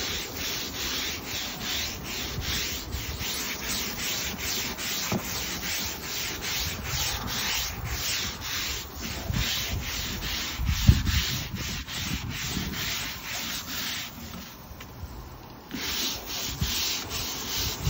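Stiff-bristled push brush scrubbing Deckorators Voyage composite decking in hard back-and-forth strokes, about two a second, with a short pause near the end. One dull thump about eleven seconds in.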